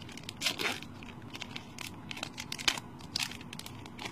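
Foil booster pack wrapper crinkling and tearing as it is opened, in irregular short crackles, the sharpest about half a second in and again near the three-second mark.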